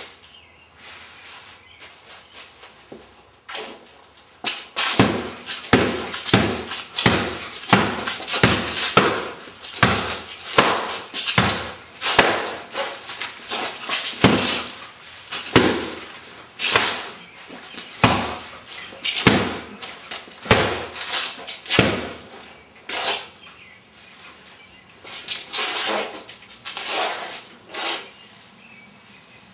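A walking-stick umbrella repeatedly whacking a heavy punching bag: a long, fast series of hard blows, about two a second, with a few sharp lone hits after them.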